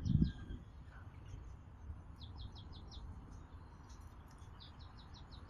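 A small bird singing two quick phrases of five or six high chirps each, the first about two seconds in and the second near the end, over a faint steady outdoor background. A brief low rumble at the very start is the loudest sound.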